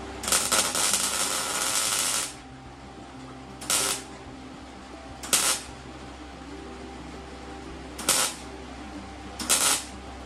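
MIG welder crackling as it lays welds to fill holes in car body sheet steel. One bead of about two seconds comes first, then four short tack welds about a second and a half to three seconds apart.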